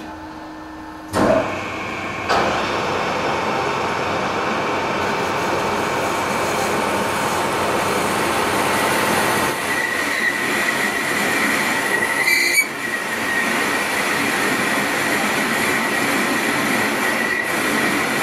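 Metal lathe starting up about a second in and running steadily while a high-speed steel parting tool cuts into a spinning free-machining steel bar; partway through a thin, steady high-pitched squeal from the cut rises over the machine noise.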